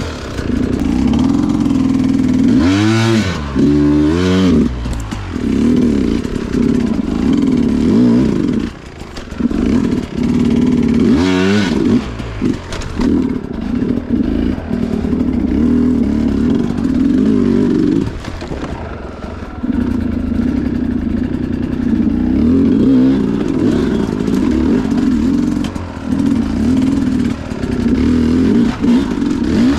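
Two-stroke Sherco enduro dirt bike engine running at low revs while crawling through rough ground, with quick rising bursts of throttle about three and four seconds in and again near eleven seconds.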